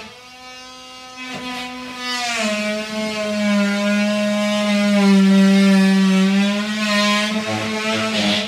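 A power tool from building work runs with a loud, steady whining hum. It gets louder and drops in pitch about two seconds in, and drops again about five seconds in.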